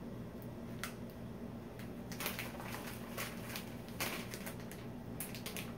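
Plastic snack bag of Huligan Pretzel Crush being handled and crinkled: a scatter of soft crackles that grow busier after about two seconds, over a steady low hum.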